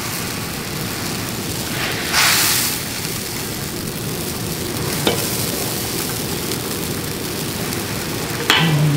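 Milkfish pieces cooking in sweet-and-sour sauce in an aluminium wok over a gas burner: steady sizzling while a metal spatula stirs, with a brief louder hiss about two seconds in.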